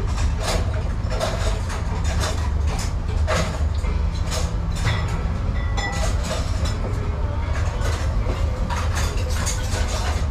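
Ramen shop kitchen noise: a steady low rumble with frequent clinks and clatters of bowls and utensils from the open kitchen.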